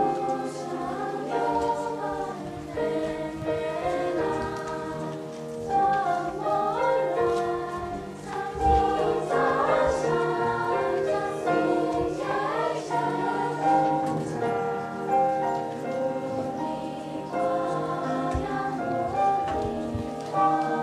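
Girls' choir singing in parts, with piano accompaniment.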